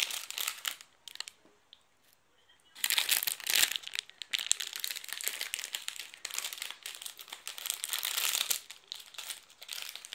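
Plastic film wrapper of a convenience-store onigiri crinkling as it is pulled open and handled. It starts lightly, pauses about two seconds in, then crinkles heavily for several seconds before easing off near the end.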